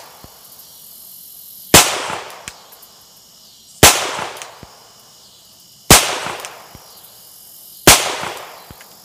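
Four shots from an M1895 Nagant revolver (7.62×38mmR), about two seconds apart, each with a short ringing tail and a faint click about a second after it.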